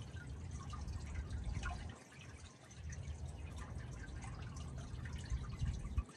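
Water spilling and trickling through a pond outlet, with many small drips and splashes. Gusts of wind rumble on the microphone, easing briefly about two seconds in and dropping away near the end.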